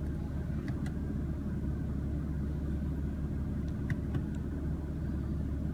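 2016 BMW M3's twin-turbo inline-six idling steadily with a low rumble, heard from inside the cabin, with a few faint clicks about a second in and again near the four-second mark.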